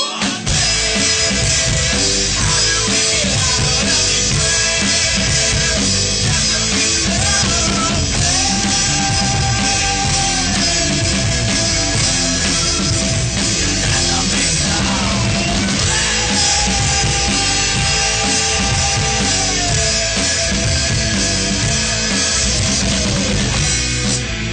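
Loud rock music: electric guitar over a drum kit, with long held guitar notes that bend in pitch.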